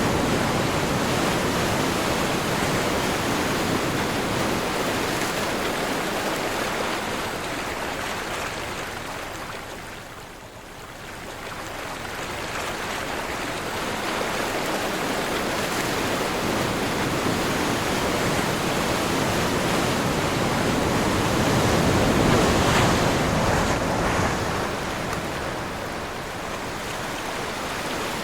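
Ocean surf washing ashore in the wind. The wash fades to a lull about ten seconds in, then builds again to a new swell near the end.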